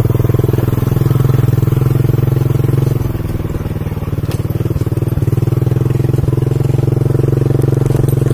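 A vehicle engine runs steadily while moving along a rough track. It eases off about three seconds in and picks back up a second or so later.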